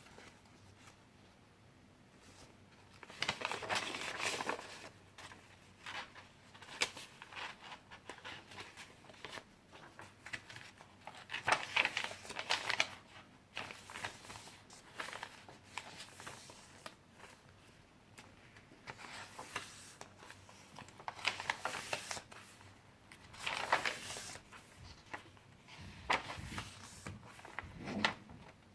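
Paper pages of a handmade junk journal being turned and handled, rustling and crinkling in a series of separate bursts.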